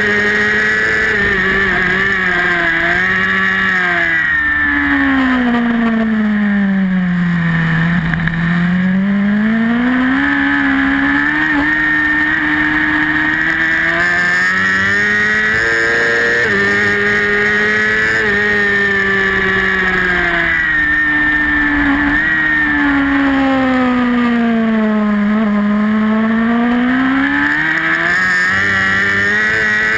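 Racing superbike engine at high revs, heard onboard from the bike itself. Twice its note drops low as the bike slows, then climbs back as it accelerates again.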